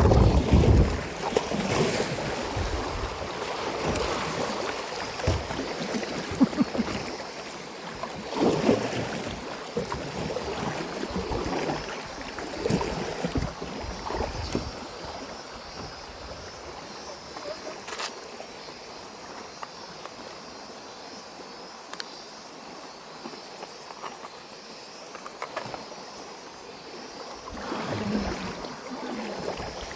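Water sloshing and splashing in irregular swishes, busiest in the first half, quieter in the middle and picking up again near the end.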